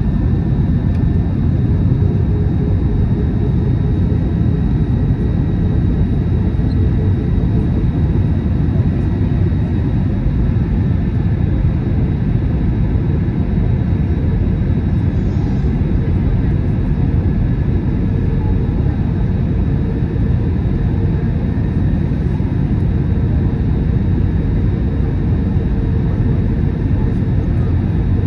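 Steady cabin noise inside an Airbus A321 airliner on its descent: the even low drone of the engines and the rush of air past the fuselage, with a faint steady tone running through it.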